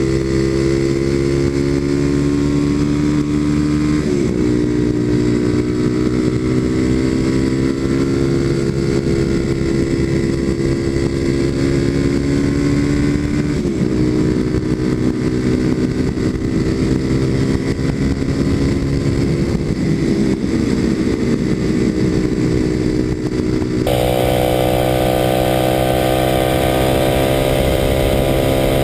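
Kawasaki KLX250SF's single-cylinder four-stroke engine through a Muzzy aftermarket exhaust, running under way with the pitch climbing gradually and dropping sharply twice, about four seconds in and near the middle, as it changes up a gear. The sound turns suddenly brighter near the end.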